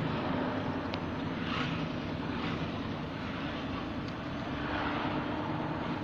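Steady road and engine noise heard inside a moving vehicle's cabin.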